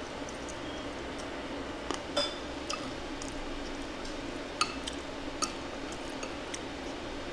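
Eating utensils clinking against bowls and dishes during a meal: a scattered series of light, sharp clinks, the loudest about two seconds in and again past the middle, over steady background noise.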